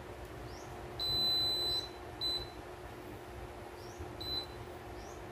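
Electric cooker's touch-panel beeps as its buttons are pressed: one long high beep about a second in, then two short beeps, over a steady hum.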